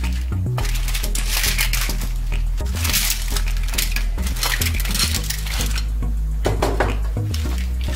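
Clams and mussels in their shells clattering against each other and the metal pan as they are tipped in from a bowl and stirred in with a wooden spoon: a dense run of clicks and rattles with short pauses.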